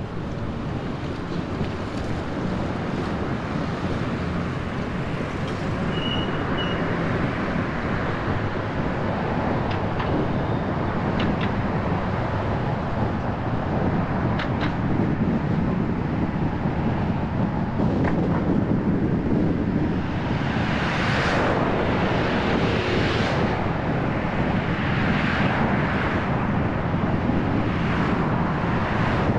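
Steady road and engine noise from a car being driven, with a few light clicks. In the last third, wind buffets the microphone in repeated gusts.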